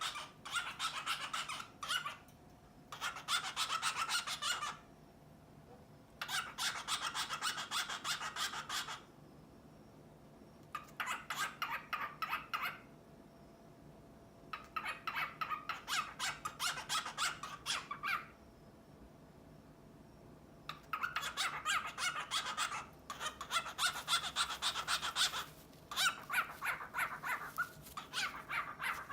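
Male cockatiel courting a female with a rapid, raspy, gurgling chatter, the 'ujuuju' display. It comes in bouts of two to four seconds split by short pauses, with a longer run near the end.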